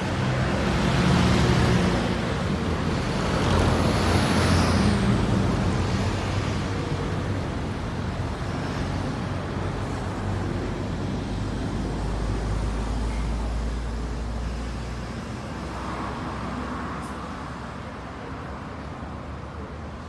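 Road traffic: a couple of vehicles pass close by in the first five seconds with engine noise, then it settles to a quieter, steady traffic hum that slowly fades.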